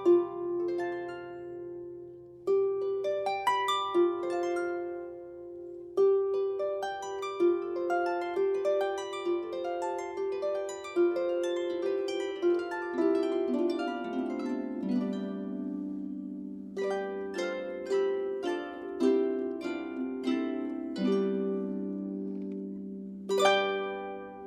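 Solo harp playing: runs of plucked strings that ring on, in phrases that begin afresh every few seconds, with deeper bass notes joining from about the middle.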